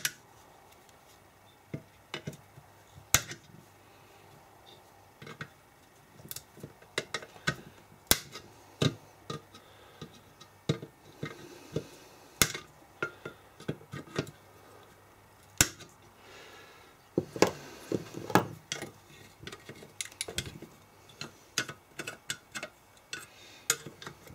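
Irregular metallic clicks, clinks and light knocks of small parts and a hand tool being handled on a car alternator as its back end is taken apart, coming more often in the second half.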